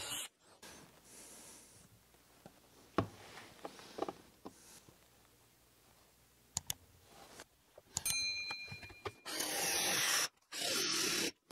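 A cordless drill finishes a pilot hole, followed by scattered clicks and knocks as an adjustable circle cutter is handled and fitted. About eight seconds in the drill whines, then drives the circle cutter into a melamine-faced chipboard panel in two short stretches of cutting noise that stop as the drill's battery runs flat.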